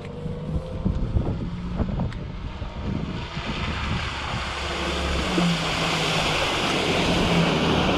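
UAZ Bukhanka van ploughing through a flooded dirt road: its engine runs steadily while water splashes and sloshes around the wheels, growing louder as it comes closer from about three seconds in.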